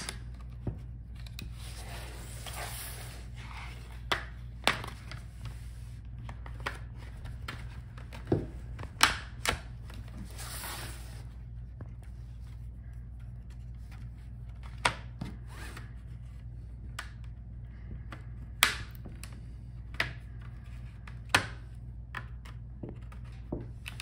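Plastic pry tool scraping along the seam of an HP Pavilion x360 laptop's bottom case and popping its retaining clips loose, heard as scattered sharp clicks and snaps with stretches of scraping in between, over a steady low hum.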